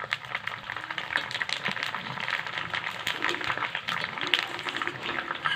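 Dense, irregular crackling made of many small clicks, holding a steady level.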